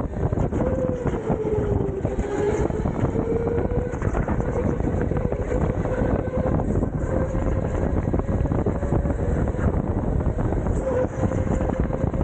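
Rental go-kart running at speed, its motor whine holding a steady pitch that dips briefly about two seconds in, over a continuous rumble of tyres and wind on the microphone.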